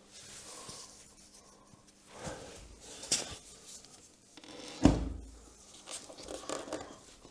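Rubbing and handling noises from parts of a motorcycle being worked on by hand, with a sharp click about three seconds in. About five seconds in comes a heavy thump, the loudest sound.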